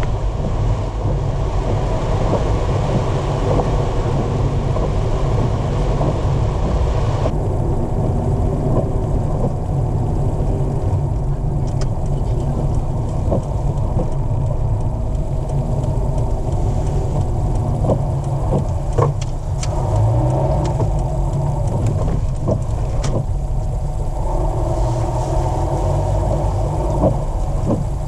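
Car driving on rain-wet roads, heard from inside the cabin: a steady low rumble of engine and tyres. A hiss over it stops suddenly about seven seconds in, and a few sharp clicks come later.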